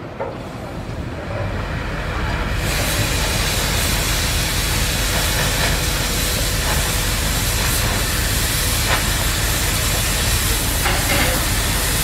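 Cutting torch slicing through steel hull plating, a steady loud hiss of the gas jet that starts abruptly about two and a half seconds in.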